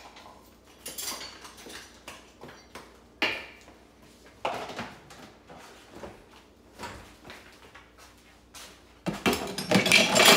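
Dishes, pans and utensils being moved about and set down on a kitchen counter, with scattered knocks and clatters. Near the end there is a louder, denser stretch of close knocks and rustling.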